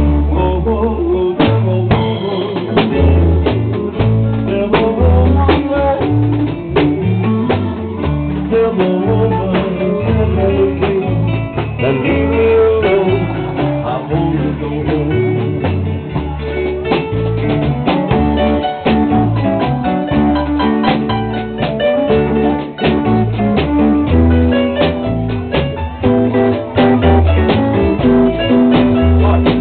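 A live band playing a song, with guitar, bass guitar and a drum kit keeping a steady beat. The bass line and drum hits carry through, with guitar lines above them.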